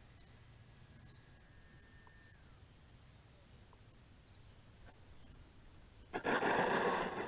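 Crickets trill steadily in the background. About six seconds in, the E-flite Viper's 90 mm electric ducted fan suddenly rises to a loud rushing whine as the jet lands on the runway close by, throttled up into reverse thrust to slow it.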